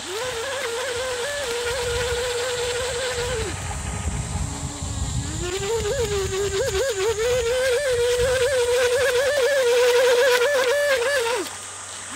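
Radio-controlled model speedboat's motor running with a high whine that wavers with the throttle. It eases off about three and a half seconds in, winds back up around six seconds, and drops away near the end.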